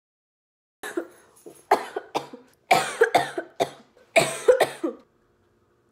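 A young woman coughing hard in repeated fits, choking on food mid-bite. The coughs begin about a second in and come in quick clusters of sharp bursts until about five seconds in.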